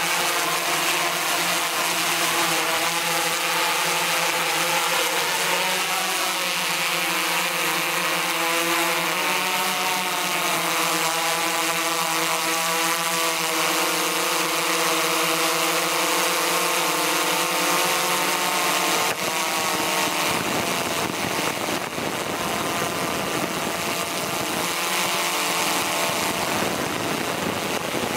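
Quadcopter drone's motors and propellers running in flight, a buzzing whine whose pitch rises and falls between about 6 and 13 seconds in. About two thirds of the way through, the whine drops out and a steady rushing noise remains.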